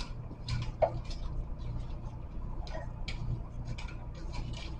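Light, irregular crackling ticks of dry seasoning being rubbed and crumbled between fingers over a crockpot, over a low steady hum.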